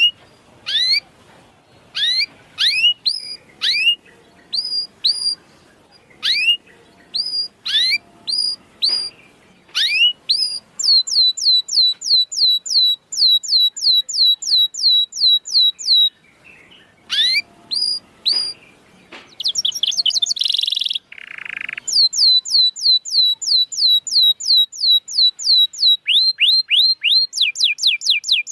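Canary song: separate sweeping chirps at first, then long, fast trills of rapidly repeated high notes, with one short harsh buzzy note about two-thirds of the way through.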